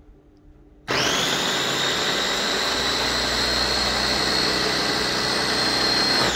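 Wongreat 600-watt electric food chopper's motor and blades running, chopping pieces of green pepper. About a second in it starts with a whine that rises quickly to a steady high pitch, holds for about five seconds while the button is held, then winds down with a falling whine near the end.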